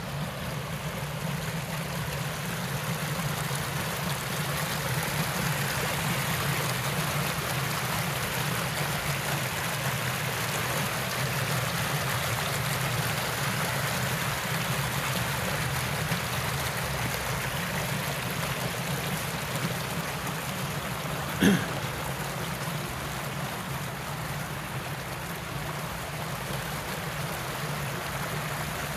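Water running steadily down a narrow mossy channel over small stepped weirs, a continuous rushing trickle. One short sharp click about two-thirds of the way through.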